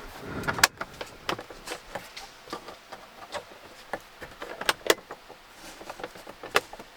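Scattered sharp clicks and light knocks from a 2015 Hyundai Santa Fe's cabin as its light switches and door are worked, the loudest about half a second in, a quick pair near five seconds and another near the end.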